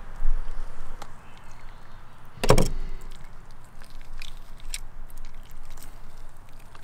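Handling noises from cutting up an octopus: scattered small clicks and knocks, with one heavy thump about two and a half seconds in.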